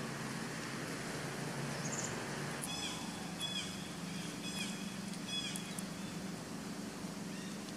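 Short high-pitched animal calls: a run of brief chirps, several in quick succession, beginning about three seconds in, over a steady outdoor background.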